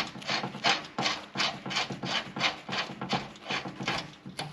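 Rhythmic metal-on-metal rasping, about four to five strokes a second, as the nut is run onto the grade 8 bolt of an enduro joint press tool.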